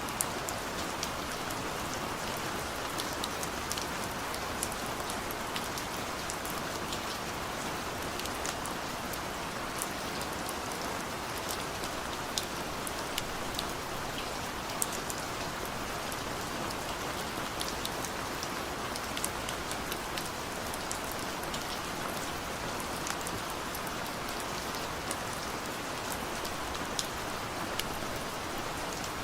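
Heavy rain falling steadily: a dense, even hiss with many scattered sharp drop ticks throughout.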